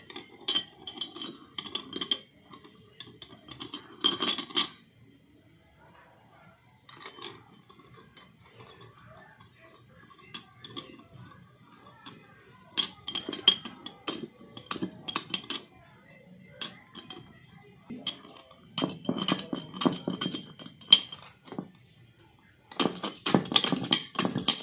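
Metal clinks and knocks of motorcycle engine parts and a wrench being handled on a concrete floor, in scattered bursts with a short ring after the strikes.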